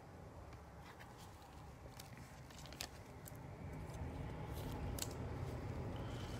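Faint rustling and small clicks of baseball cards and their cellophane pack wrapper being handled by gloved hands, getting louder about four seconds in.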